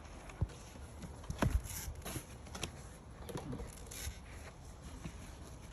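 A few scattered knocks and clicks with light rustling, the loudest knocks about half a second and a second and a half in: objects being handled. No saw motor is running.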